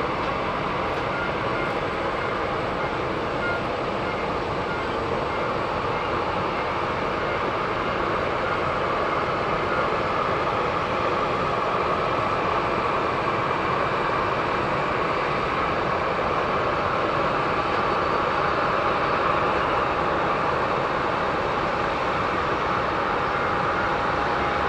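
Boeing 737 jet engines running at taxi power: a steady rushing hum that grows a little louder past the middle, with a thin steady tone joining near the end.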